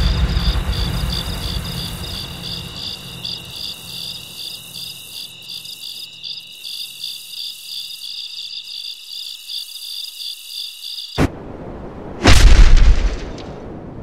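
Crickets chirping in a fast, steady pulse over a deep boom that fades away over the first few seconds; the chirping cuts off suddenly about eleven seconds in, followed by a short burst and then a loud explosion-like blast near the end.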